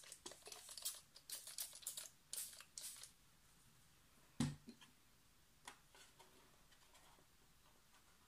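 Small pump spray bottle misting water onto semi-moist watercolor pans to activate them, a run of quick short sprays over the first three seconds. A single knock follows about four and a half seconds in.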